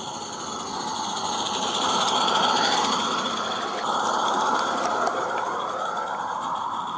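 Accucraft Mortimer live-steam garden-railway locomotive chuffing rapidly as it runs past, growing louder to a peak a couple of seconds in and then fading as it moves away.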